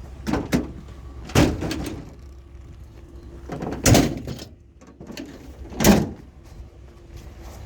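A series of hard bangs and clunks: a quick double knock near the start, then three louder bangs about two seconds apart, the last two each led in by a short scraping rush.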